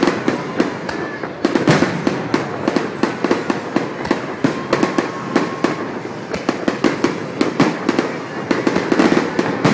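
Fireworks display: aerial shells bursting, with a dense, irregular run of sharp crackling pops and bangs.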